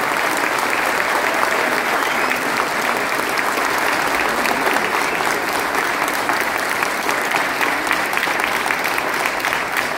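A large theatre audience applauding, a dense, steady clatter of many hands clapping.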